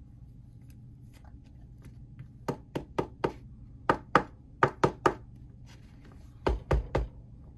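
Sharp taps and clicks of trading cards and a rigid plastic toploader handled and knocked against a tabletop: about a dozen quick taps, then three heavier, duller knocks near the end.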